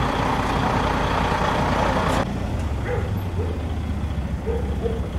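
Vehicle engines running: a loud, steady engine noise that cuts off abruptly about two seconds in, then a lower, quieter engine hum as a side-by-side UTV drives up toward the truck's loading ramp.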